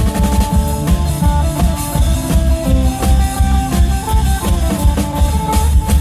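Isan klong yao long-drum band music: drums beating a steady rhythm under a melody played on a phin, the northeastern Thai plucked lute.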